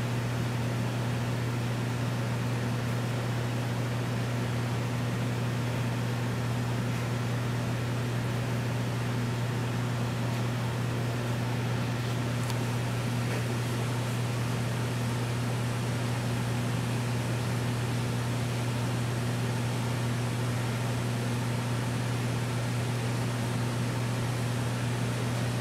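Reef aquarium pumps and equipment running: a steady low electrical hum over a constant hiss.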